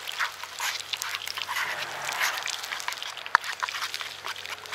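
Metal spoon scraping and clinking around a small metal bowl in quick, irregular strokes as pepper gravy is stirred to work out the lumps, with one sharp click about three and a half seconds in.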